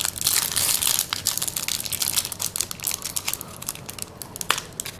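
Crinkling and crackling of a trading card pack's foil wrapper as it is handled and worked open, busiest in the first second or so.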